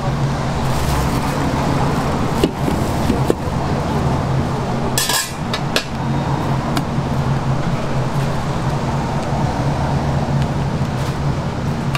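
Steady low hum of a food stall's background, with a few clicks and clatters of metal tongs and containers, the sharpest about five seconds in.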